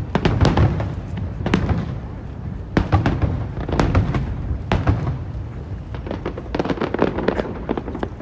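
Aerial firework shells bursting in quick succession: a string of sharp bangs over a low rumble. A quick cluster of crackling reports comes about two thirds of the way in.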